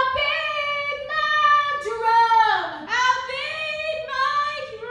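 A woman singing solo in a show-tune style, holding long notes and sliding in pitch between phrases.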